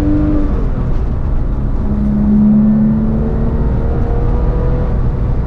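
Porsche 997.1 GT3 RS's flat-six engine pulling steadily under way, heard from inside the cabin over road rumble. The engine note rises slightly in the second half.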